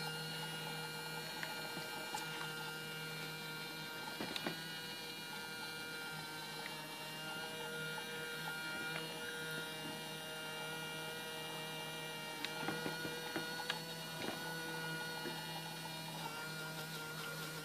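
Small electric bilge pump motor running steadily with a hum of several steady tones, with a few light knocks about four seconds in and again about two-thirds of the way through.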